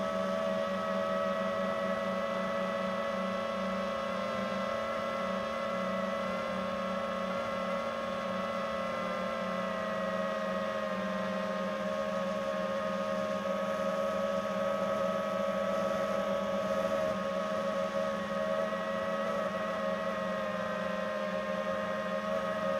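FPV quadcopter's brushless motors whining steadily in cruise: several steady tones at once, with a small pitch shift about ten seconds in.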